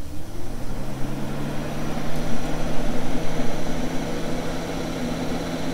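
Motorhome roof vent fan (Fan-Tastic Vent) switching on and spinning up: a low motor hum rises in pitch over the first second and a half, then runs steadily over a rush of moving air.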